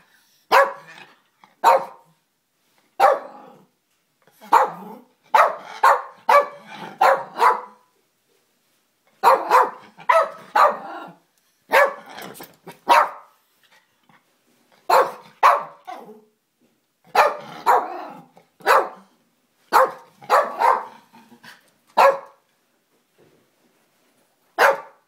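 Yorkshire terrier barking over and over, in single barks and quick runs of two to four with short pauses between. The owner wonders whether the bark points to a trachea problem.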